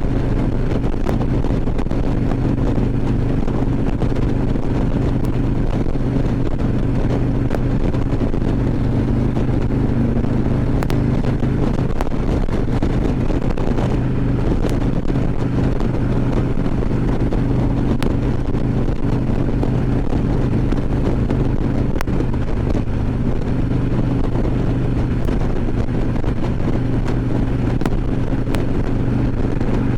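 Harley-Davidson Ultra Classic Limited's V-twin engine running steadily at cruising speed, with a constant rush of wind on the helmet microphone. The engine note wavers briefly about halfway through, then settles again.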